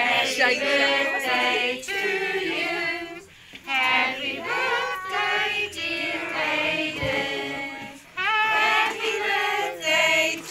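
A group of adults and children singing together around the birthday cake, with two brief breaks between phrases.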